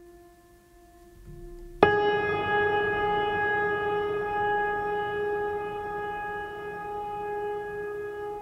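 Background music: a soft held note, then about two seconds in a sudden bright tone rich in overtones that rings on and slowly fades, like a struck bell or singing bowl.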